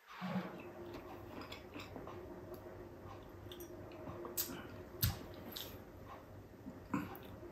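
A person eating by hand and chewing adobo octopus, with wet mouth sounds and a few sharp clicks, over a faint steady hum.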